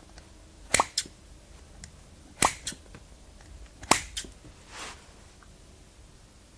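Scissors snipping through a soft foam squishy toy: three sharp double clicks of the blades about a second and a half apart, followed by a softer rustle of the foam.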